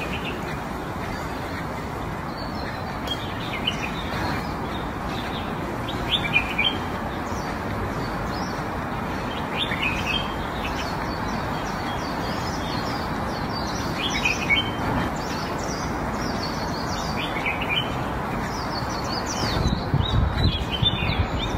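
Small birds chirping, a few short high chirps every few seconds over a steady background hiss, with a louder low rumble near the end.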